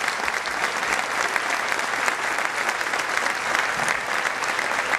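A large seated audience applauding with steady clapping.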